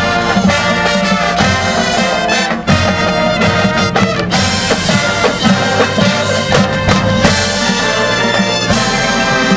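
Marching band playing at full volume: brass section of trumpets and trombones sustaining chords over frequent sharp drum hits.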